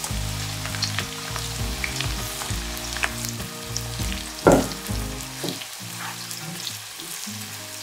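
Thinly sliced onions sizzling as they fry in plenty of hot oil in a wok, stirred with a spatula that clicks against the pan, with one louder clatter about four and a half seconds in. Soft background music with low chords plays underneath.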